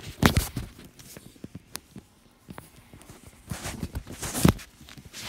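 Handling noise: irregular knocks and clicks as a phone is moved about in a wire pet cage, with two louder clusters of thumps, one at the start and one about four seconds in.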